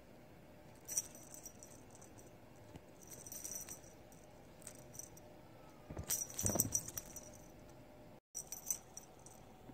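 Feather wand cat toy jingling in short bursts, about four times, as kittens bat at it, with a louder bump and rustle about six seconds in.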